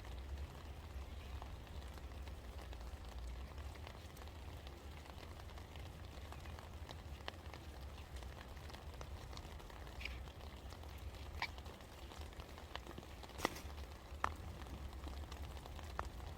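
Rain falling in a faint, even patter, with separate louder drops striking now and then, about half a dozen times. A steady low rumble runs underneath.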